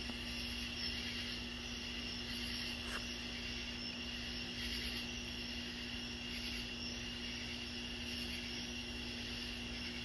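Night insects calling: a steady high trill, with short, very high-pitched bursts repeating every second or two, over a steady low hum.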